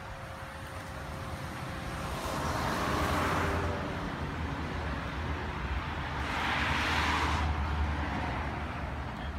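Road traffic: a steady low rumble, with two vehicles passing by, each swelling and fading over a second or two, about two seconds in and again about six seconds in.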